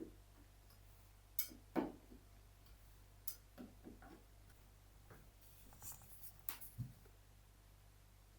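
A handful of light, irregular clicks and knocks of objects being handled. The loudest pair comes about two seconds in, and a few more come near the end.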